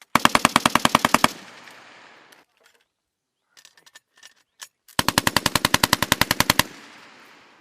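M240 7.62 mm belt-fed machine gun firing two bursts of automatic fire, about a dozen rounds a second. The first burst lasts just over a second, and the second, longer one comes about five seconds in. Each burst echoes away afterward, and a few faint clicks fall between them.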